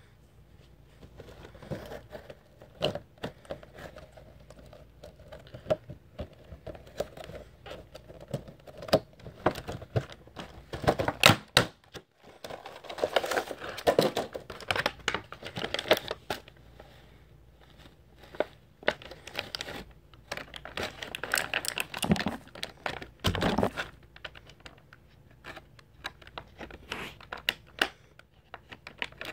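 Clear plastic packaging crinkling and rustling as it is handled, in irregular bursts of sharp crackles, busiest around the middle.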